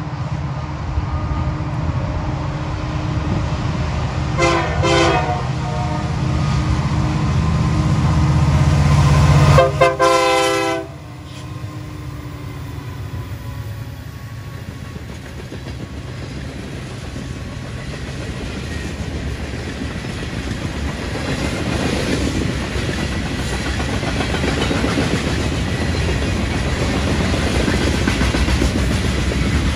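A diesel train passing. Its engine rumble builds, and the locomotive horn gives two short blasts about four seconds in and a longer blast about ten seconds in. Then the engine sound drops away and the cars roll by on the rails, growing louder toward the end.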